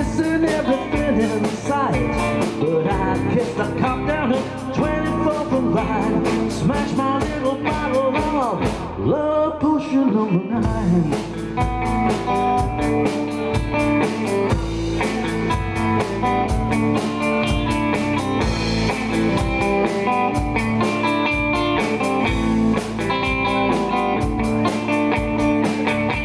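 Live blues-rock from an electric guitar and a drum kit: a guitar lead with bending notes over a steady beat. Near the ten-second mark the drums stop for about a second and a half, then the full band comes back in.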